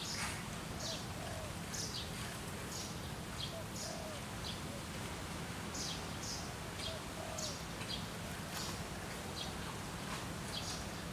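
Birds chirping: many short, high chirps come several times a second, with a few softer, lower calls among them, over a steady low background hum.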